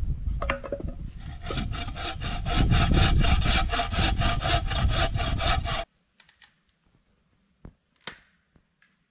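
Bow saw cutting through a log in quick, even strokes, about five a second, stopping abruptly about two-thirds of the way through. A few faint knocks of wood follow.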